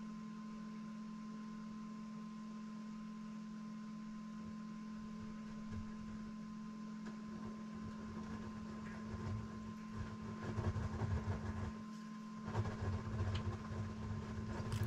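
Faint, steady electrical hum with a thin higher tone above it. From about nine seconds in there are soft, irregular low bumps of handling.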